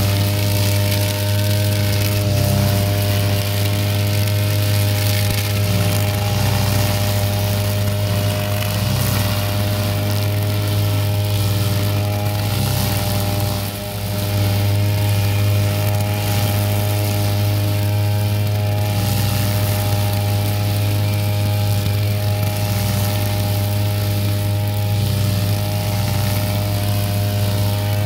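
Backpack brush cutter's small petrol engine running steadily at high speed while cutting grass, with a brief dip in level about halfway through.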